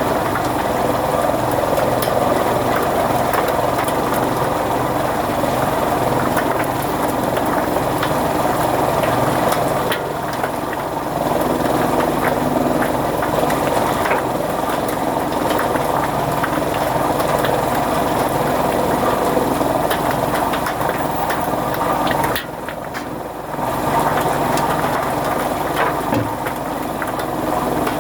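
Chaff cutter (fodder-cutting machine) running with a steady mechanical drone and fine rapid clicking. It drops out sharply for about a second near the end, then picks up again.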